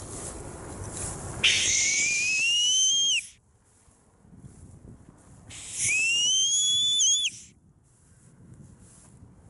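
Boatswain's whistle blown in two long, high, piercing blasts, each gliding upward in pitch and cutting off sharply; the second ends with a quick dip. A low rumble of wind runs underneath.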